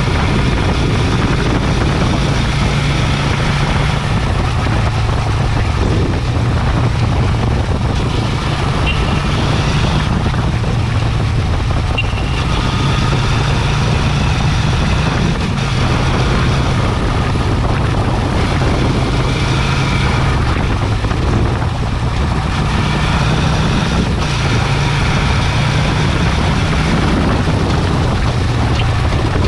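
Yamaha Virago 250's air-cooled V-twin engine running steadily as the motorcycle is ridden along a road. It is heard close up from low beside the engine, with wind and road noise, and the engine note shifts slightly every few seconds.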